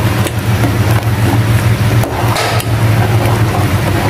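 A metal ladle stirring boiling pumpkin soup in a metal pot, with scattered clinks and scrapes against the pot and a short noisier stir about two and a half seconds in. Under it runs a steady low mechanical hum.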